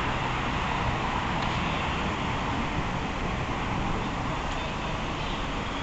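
Steady outdoor rushing noise of wind and road traffic, with no distinct events.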